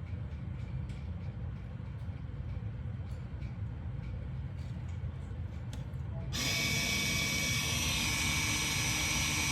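The BMW M5's rear electric parking-brake caliper motors whir steadily for the last few seconds, starting abruptly, as the scan tool drives the brakes into workshop mode for pad service. Before that there is only a low steady hum with faint clicks.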